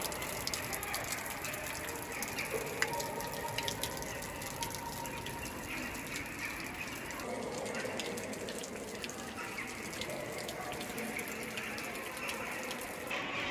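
Water trickling inside a large cave: a steady rush dotted with many small ticks.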